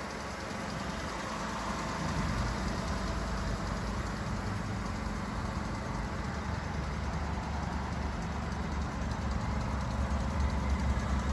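Alfa Romeo Stelvio Quadrifoglio's 2.9-litre twin-turbo V6 idling steadily, a low even hum.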